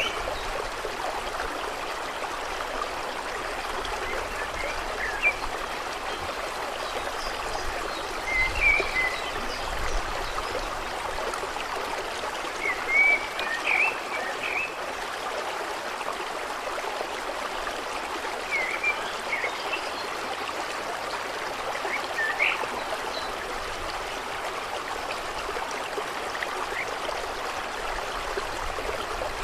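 Water running and trickling steadily, with a few short bird chirps scattered over it.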